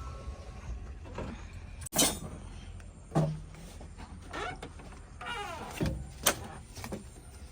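Diesel engine of heavy machinery running with a steady low rumble, with a couple of sharp knocks (about two seconds in and near the end) and short sliding, squealing sounds in between.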